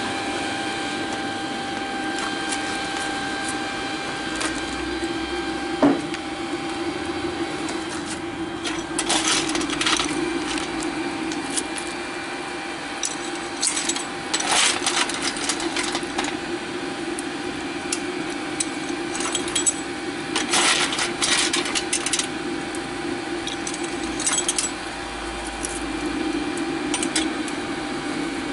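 Electric steam-raising blower, a 12-volt car heater motor with a homemade fan, running steadily on the chimney of a 5-inch gauge live steam locomotive to draw the fire. Several short bursts of metallic clinking and rattling come over it.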